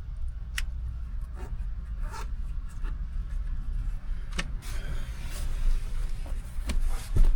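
Scattered clicks, knocks and rubbing of things being handled inside a car, over a steady low rumble, with a louder knock near the end.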